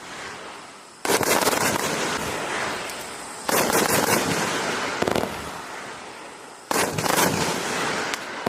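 A 180-shot compound firework cake firing in three volleys of rapid shots. Each volley starts suddenly and fades over a couple of seconds: the first about a second in, the next about three and a half seconds in, the last near seven seconds.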